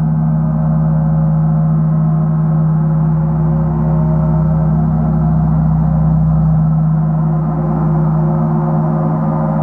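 Large gong played continuously with two soft mallets, giving a dense, sustained wash of many overlapping tones over a strong steady low hum, with no sharp strikes standing out.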